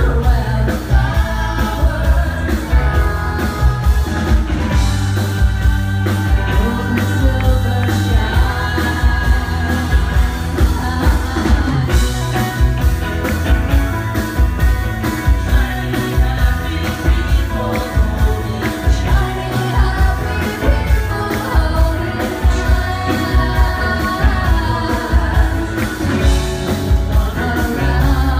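Live rock band: a woman singing lead into a microphone over acoustic guitar, electric bass and drums, with a steady beat.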